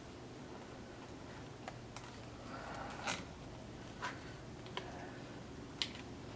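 Faint handling noises: scattered light clicks and rustles of wires being tucked into an electrical box, about half a dozen, the loudest about three seconds in, over a low steady hum.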